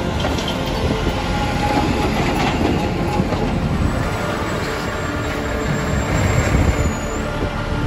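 Diesel engines of a line of semi-trucks with bottom-dump trailers running close by: a steady heavy rumble with scattered metallic knocks.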